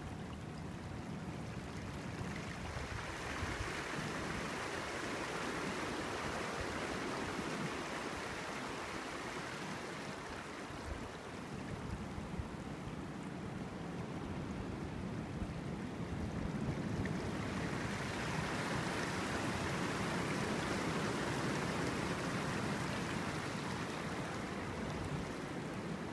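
Sea water washing over a coral reef at low tide: a steady rush of surf that swells louder twice and eases between.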